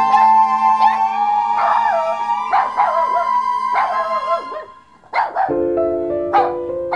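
Background music of held notes, with puppies crying over it: calls bending up and down in pitch through the middle, then a couple of short sharp calls near the end.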